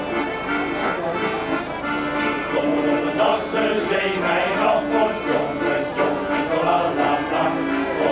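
Shanty choir performing: accordions play sustained chords and melody, and a male choir sings along, louder from about two and a half seconds in.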